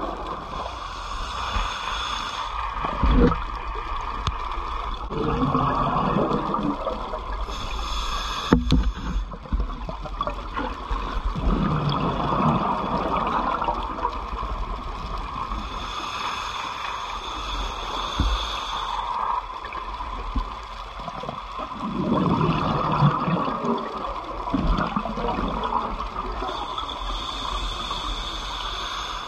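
Scuba diver breathing through a regulator underwater, in slow cycles: a hissing inhale, then a burst of gurgling exhaust bubbles, repeated about three times.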